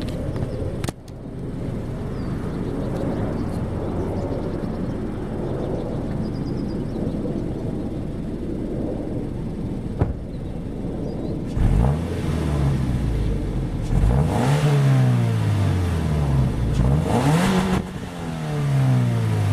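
A car engine idles steadily through its original exhaust, the one about to be replaced with a cat-back system. About twelve seconds in it is revved several times, the pitch climbing and falling with each blip.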